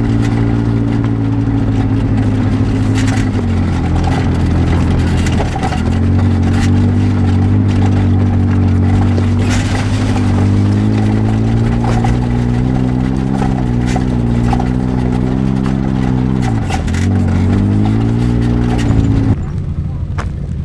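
A UTV's engine running under throttle while driving a dirt trail, its speed dipping twice and climbing back, with scattered clicks and knocks from the ride. The engine sound stops abruptly near the end.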